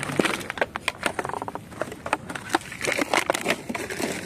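Empty plastic drink bottles crackling and crinkling as they are flattened and handled, a rapid, irregular run of sharp clicks.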